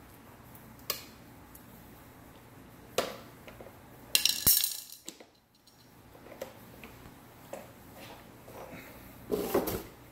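Hard plastic parts and screws of a Bissell PowerForce Helix upright vacuum being handled during reassembly: scattered clicks and knocks, with a loud clatter about four seconds in and a duller knocking near the end.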